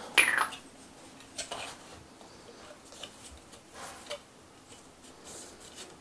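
Hands handling brass pipe fittings and plumber's thread tape: a short falling squeak at the start, then faint scattered clicks and rubbing as the tape is wrapped onto the threads.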